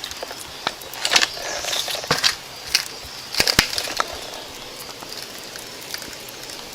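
Irregular crunching with a scattering of sharp clicks and knocks, dying down over the last few seconds.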